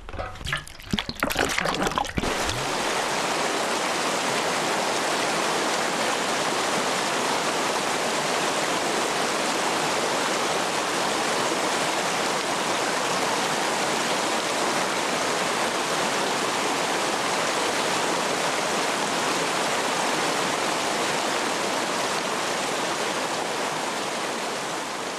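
Mountain stream rushing over rocks and small cascades, a steady, even rush of water. A few short knocks come in the first two seconds, before the water sound comes in.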